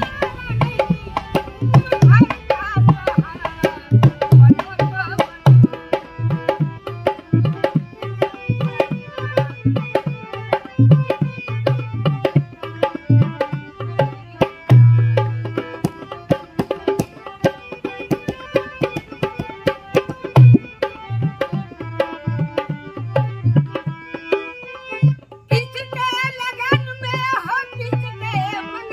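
Harmonium playing a melody in held notes over a fast hand-played dholak rhythm, with deep drum strokes. A voice starts singing near the end.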